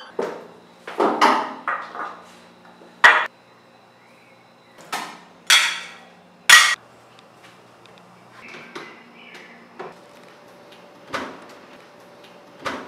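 Plates and cutlery being set down on a table: a string of separate sharp clinks and clatters. The loudest comes about three seconds in, with two more strong ones around five and a half and six and a half seconds.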